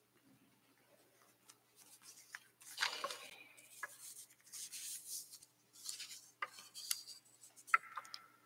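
Handling noise at a lectern: papers rustling, with scattered small clicks and knocks, and a short squeak near the end.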